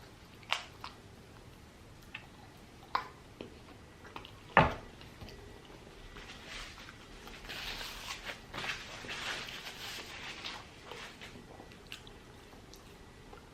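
Eating sounds of chicken biryani and naan: wet chewing and squishing, heaviest in a stretch through the middle, with a few sharp clicks and one louder thump about four and a half seconds in.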